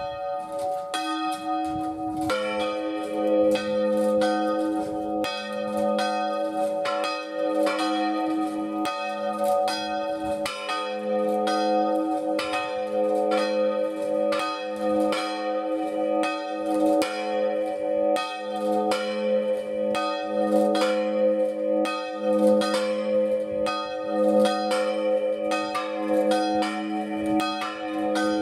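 Two small Marinelli-cast church bells swinging full circle and ringing in a continuous, uneven peal. The second bell joins about two seconds in. One of the pair, the second bell, has a large crack that mars its tone.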